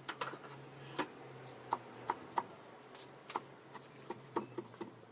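Light, irregular clicks and taps of kitchen utensils, about a dozen scattered through the few seconds, over a faint steady low hum.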